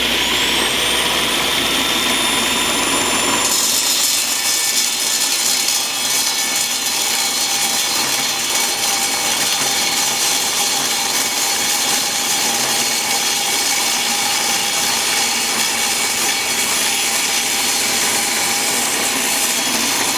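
Table saw running, its blade cutting into a pine block that a cordless drill spins on a jig, rounding it into a 3-inch pulley blank. A high whine climbs in pitch in the first second, and from about three and a half seconds in a steady rasping cutting noise joins the running saw.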